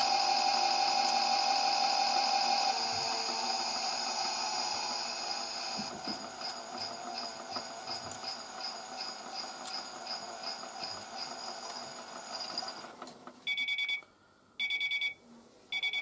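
Theo Klein toy Miele W1 washing machine running its spin with a steady electronic whirring that fades, a regular pulsing tick about two or three times a second joining about six seconds in. The whirring stops near the end and the machine gives short electronic beeps.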